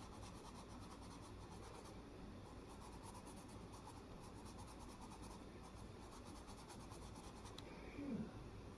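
Faint scratching of an oil-based coloured pencil (Star-Joy Gold) shading on paper, with a brief soft sound near the end.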